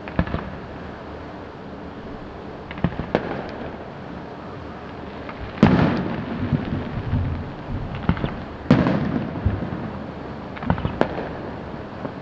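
Aerial firework shells bursting with a series of sharp bangs at uneven intervals, each trailed by a rumbling echo. The two loudest bangs come about halfway through and a few seconds later.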